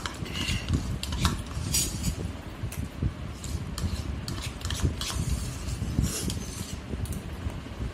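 Steel spoon scraping and clicking against the inside of a plastic bowl while scooping out yogurt, in irregular short scrapes and taps.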